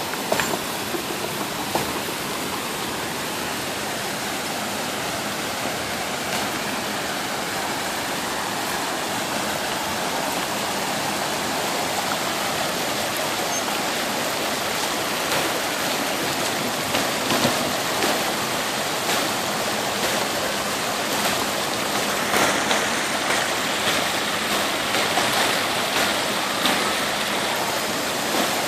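Muddy storm floodwater rushing over pavement, with rain falling: a steady rush that grows a little louder as it goes on, with scattered short taps in the second half.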